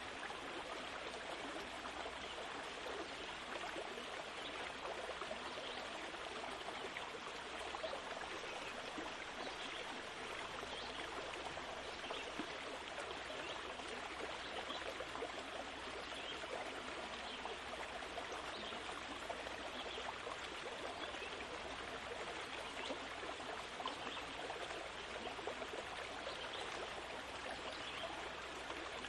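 Steady rushing, trickling noise like running water in a stream.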